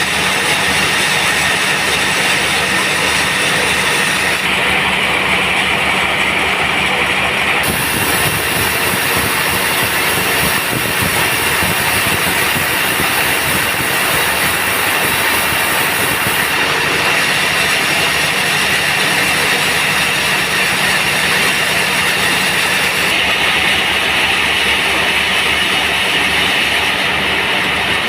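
Sawmill band saw running steadily, sawing teak. A brighter hiss sounds from about eight to sixteen seconds in.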